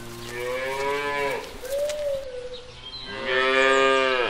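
Cows mooing: a long moo in the first second and a half, a shorter call after it, and a louder long moo about three seconds in.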